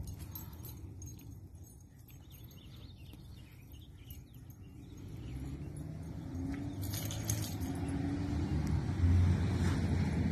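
Low rumble of a vehicle going by, growing louder through the second half. Dog collar tags jingle briefly about seven seconds in.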